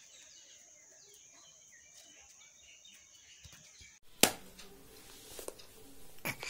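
Faint outdoor ambience: a steady high-pitched insect drone with small bird chirps. About four seconds in it cuts off, and indoor sound follows with a sharp knock, the loudest sound here, and a second knock near the end.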